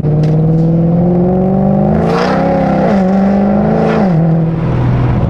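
Mercedes-AMG C63 (W204) naturally aspirated V8, catless with headers and a Valvetronic Designs valved exhaust, running while the car is driven. Its note climbs slowly, swells and dips briefly about two seconds in, and drops about four seconds in.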